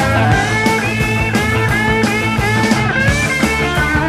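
Rock music with guitar and a steady drum beat.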